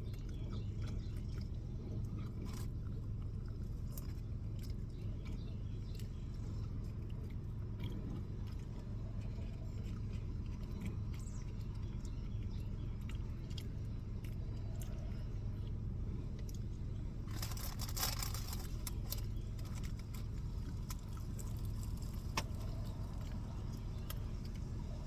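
A person chewing and eating, with small scattered clicks, over a steady low hum; a brief rustling noise comes about 18 seconds in.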